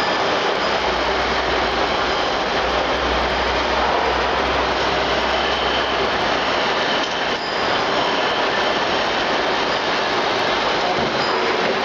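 Rice milling machine running steadily, an even mechanical noise with no change in speed.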